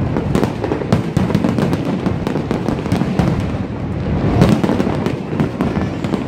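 Aerial fireworks display: a dense run of overlapping bangs and crackles from shells bursting, loudest about four and a half seconds in.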